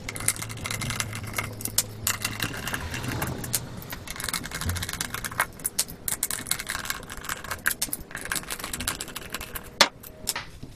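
Hand screwdriver undoing Torx screws from a plastic sound symposer housing: a run of quick clicks and scrapes, with one sharper click near the end.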